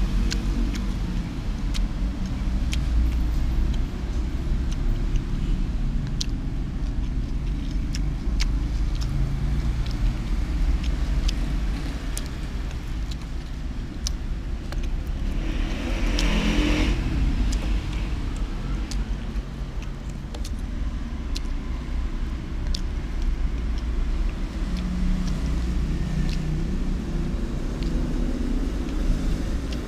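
Steady low rumble of road traffic, with one vehicle passing and loudest a little past halfway. Scattered light clicks run through it.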